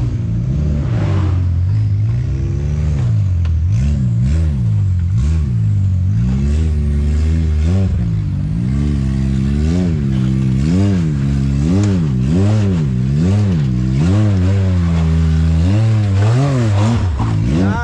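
A side-by-side UTV's engine is being revved up and down over and over, the revs rising and falling nearly twice a second through the middle stretch.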